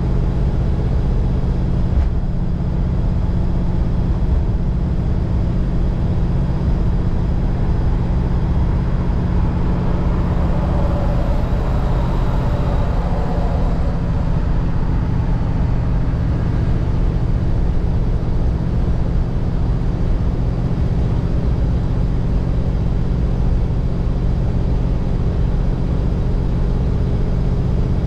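A 1948 Mercury station wagon's 239-cubic-inch flathead V8 running steadily on the road, its engine note holding an even pitch with no shifts or revving. A brief swell of other noise comes in around the middle.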